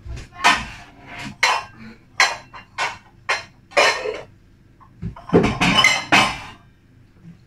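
Kitchen dishes and utensils clinking and clattering as they are handled and set down on a counter: a string of separate knocks, with a denser run of clatter about five to six seconds in.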